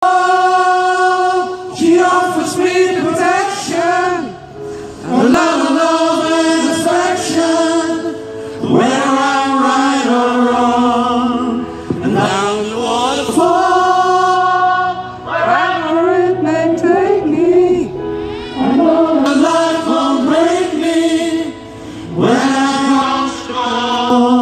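A large choir of men's and women's voices singing together with a conductor, in phrases of a few seconds each separated by short breaks.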